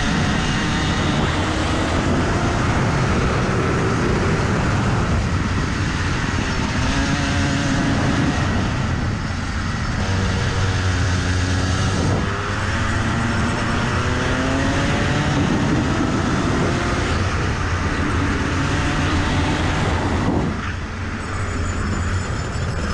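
Rotax two-stroke single-cylinder kart engine at racing speed, the revs climbing again and again as the kart accelerates out of corners and dropping off sharply under braking, about halfway through and near the end.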